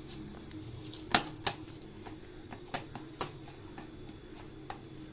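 Hands kneading soft, oil-greased rice-flour dough on a plate: scattered soft slaps and clicks at an uneven pace, the sharpest a little over a second in and again around three seconds in.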